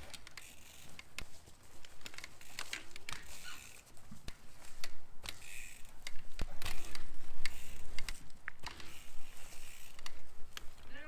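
Bicycle rattling and clicking under a rider practising wheelies, with the rear hub's ratchet ticking and sharp knocks scattered through, over low wind rumble.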